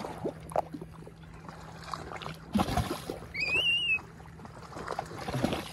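Lake water lapping and splashing at the shoreline, with many small knocks and a louder thump about two and a half seconds in. A brief high, wavering squeal follows a moment later.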